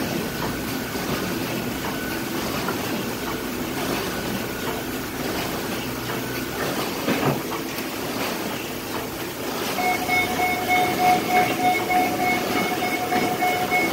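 1987 Bobst 130E blanking machine running with a steady mechanical din as its delivery pallet lift lowers a pallet to the floor. A steady high tone comes in about ten seconds in and holds to the end.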